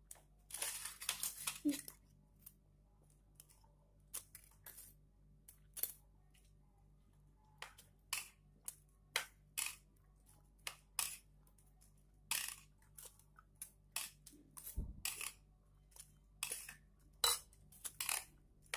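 Close-up eating sounds of noodles being slurped and chewed: a longer slurp about a second in, then a string of short, irregular smacks and clicks.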